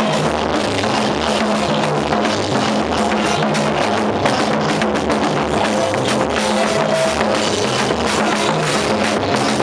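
Loud live band music with a driving drum kit, bass and guitar playing a steady beat.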